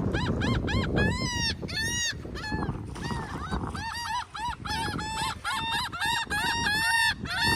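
Seagulls calling: a rapid series of short, arched cries, a few longer ones about a second and two seconds in, then a quick run of repeated calls through the second half, over some wind rumble.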